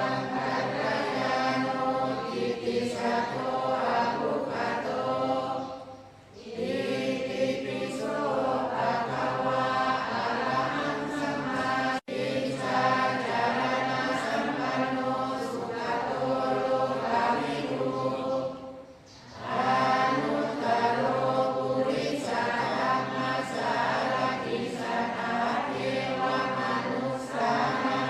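A group of voices chanting Pali verses of the Thai Buddhist evening chanting service in unison, in a steady recitation tone. The chant breaks off briefly twice for breath, about six seconds in and again about nineteen seconds in.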